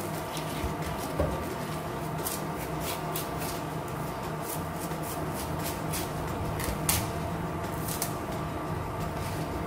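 Kitchen knife cutting through crisp mustard green stalks and leaves on a wooden cutting board: a run of irregular short snaps and taps, the sharpest about seven seconds in, over a steady low hum.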